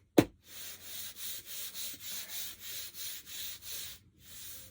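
Rhythmic back-and-forth scraping strokes on packaging, about three a second, as a box is worked open by hand. A sharp knock comes just after the start, and there is a short pause near the end.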